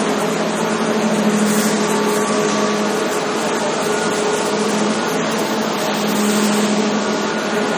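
Brickworks clay preparation machinery running: electric motors, belt conveyors and a clay mixer giving a steady, loud mechanical noise with a constant hum.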